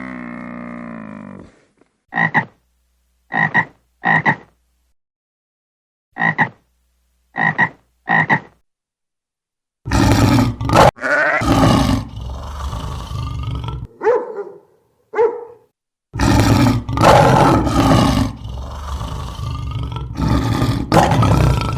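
Animal calls: two groups of three short, pitched calls in the first half, then loud, rough calls with pitched parts from about ten seconds in to the end.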